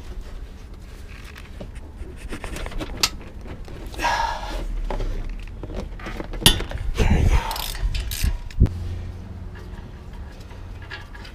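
Socket wrench working the front brake caliper's mounting bolts loose, with metal clicks and scraping, and two sharp clanks, about six and a half and eight and a half seconds in.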